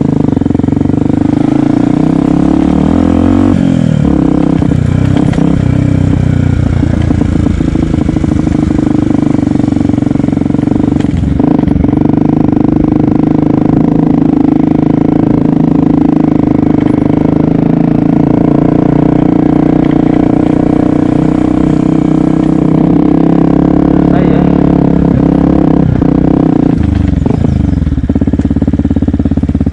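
Yamaha WR125X's 125 cc single-cylinder four-stroke engine running steadily under way, close to the microphone. The engine note drops and climbs again a few seconds in and again near the end as the revs change.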